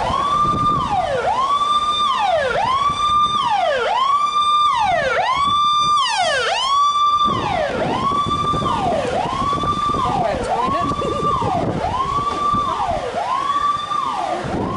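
Electronic siren wailing in a repeating cycle, each one rising to a high note, holding briefly and sliding back down, about once every second and a quarter. Between about 3 and 7 seconds in, a second overlapping sweep doubles it.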